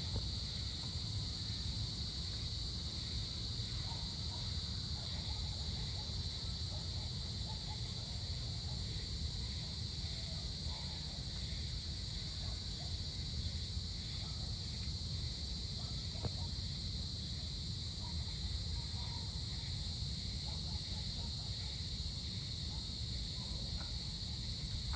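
Steady chorus of insects, a continuous high-pitched trill that never lets up, over a low rumble.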